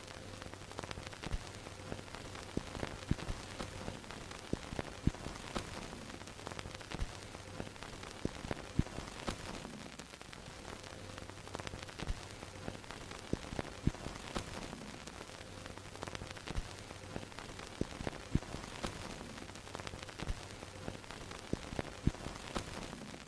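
Old film projector sound effect: a steady hiss with a faint low hum, scattered with irregular crackling clicks and pops like dust and scratches on a film soundtrack.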